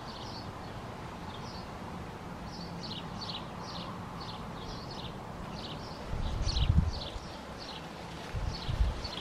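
A small bird calling a long run of short, high, falling notes, about two a second. Low rumbling thumps come in about six seconds in and again near the end, louder than the bird.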